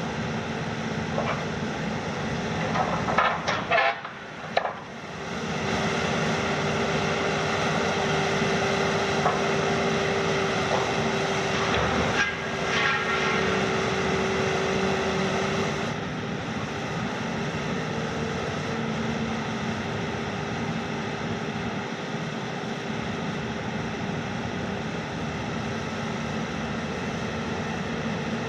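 A Hitachi KMC 380 S long-front demolition excavator running steadily under load. A cluster of sharp knocks and crunches comes a few seconds in, as the attachment works the roof, and more come around twelve seconds. A steady whine sits in the drone from about five seconds in and stops at around sixteen seconds.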